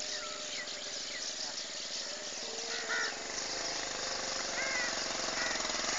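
A small motorcycle engine running as the bike rides closer, growing louder toward the end. Birds chirp briefly now and then over it.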